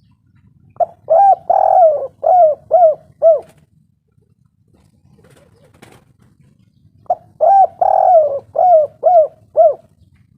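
Spotted dove cooing: two song phrases about six seconds apart, each a quick run of five or six short coos with a longer note second in line.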